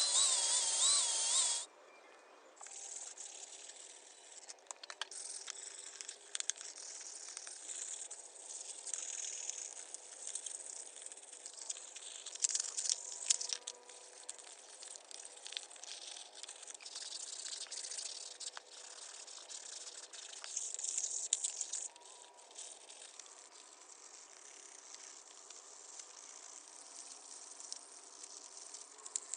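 A small power tool whines with a wavering pitch and stops about two seconds in; then scratchy rubbing with scattered light clicks and taps.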